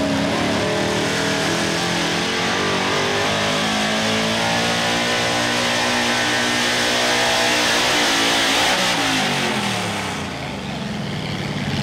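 A vintage Chevy pickup pulling truck's engine at full throttle, hauling a weight-transfer sled. The revs climb and hold high through the pull, then fall away steadily about nine to ten seconds in.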